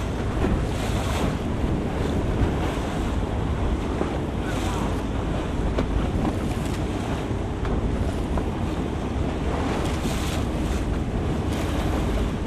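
Heavy wind buffeting the microphone on a boat crossing choppy water, with water washing against the hull and gusts coming and going every second or two.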